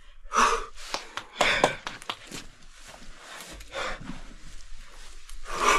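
A person panting and breathing hard from physical effort, with scraping and knocking sounds of a climb, in a small stone chamber. Three louder breaths, about half a second, a second and a half and near the end.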